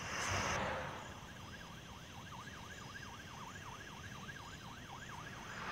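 Faint emergency-vehicle siren in a fast yelp, its pitch sweeping up and down about three times a second, after a brief rush of noise that fades away in the first second.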